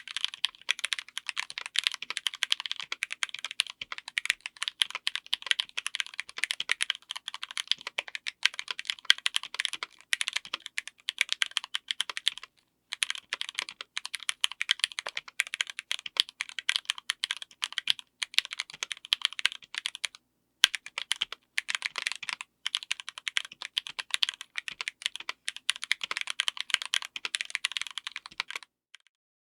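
Fast typing on a mechanical keyboard with Gateron G Pro Yellow linear switches on an FR4 plate: a dense run of keystroke clacks, with two brief pauses about halfway and two-thirds through. The typing stops shortly before the end.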